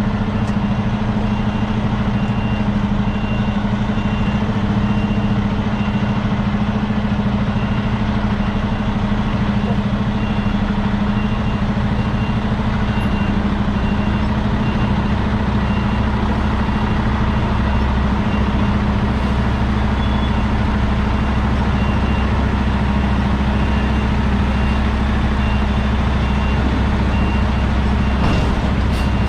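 Semi truck's diesel engine running steadily with a deep, even hum. A high beep repeats about once a second through most of it, like a reversing alarm.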